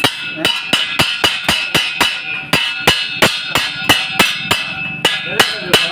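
Hammer striking a steel pipe in rapid, steady blows, about four a second, with the metal ringing between strikes.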